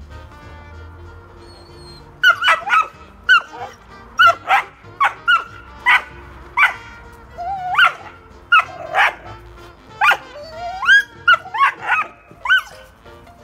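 Dutch Shepherd puppy barking over and over in short, high-pitched barks and yelps, some rising in pitch, starting about two seconds in.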